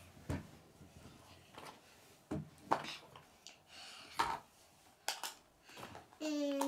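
Small plastic toy pieces clicking and knocking against each other and the packaging as they are handled, in scattered single knocks.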